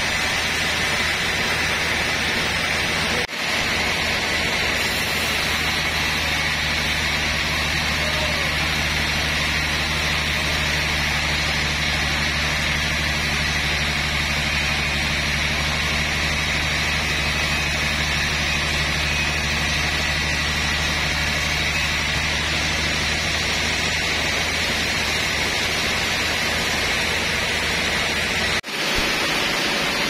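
A large band sawmill running steadily as its blade saws through a big trembesi (rain tree) log: a continuous machine hum under a hissing saw noise. It breaks off briefly about three seconds in, and the hum drops out just before the end.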